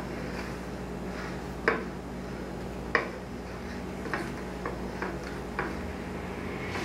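Light, scattered clicks and taps, about six of them with the loudest about three seconds in, as a silicone spatula works around the edge of a glass cake plate that is being turned by hand. A steady low hum runs underneath.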